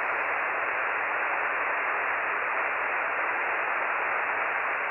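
Steady, muffled hiss of band noise from a ham radio receiver on the 10-meter band, with no station answering a CQ call.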